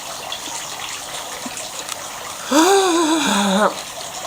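A person lets out a loud, wavering wordless cry lasting about a second, midway through, likely a reaction to the burn of hot lime pickle. A steady background din of restaurant noise runs under it.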